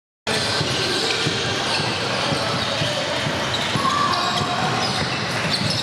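Basketball game in a gym: a ball bouncing on the court among shoe squeaks and background chatter. The sound cuts in a moment after the start, following a brief dropout.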